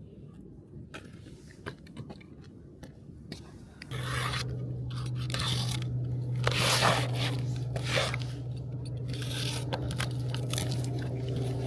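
Crinkling, scraping and rubbing of packaging being handled, quiet at first and louder from about four seconds in, with a steady low hum starting at the same moment.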